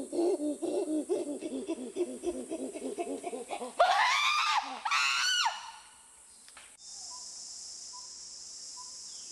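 Rapid, high-pitched laughter, about four or five bursts a second, then about four seconds in two loud shrieking screams that rise and fall in pitch. After a short pause a steady hiss comes in.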